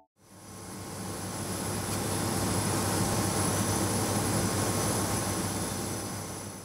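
Jet turbofan engine running: a steady rushing noise with a thin high whine over it, fading in over the first two seconds and easing off slightly near the end.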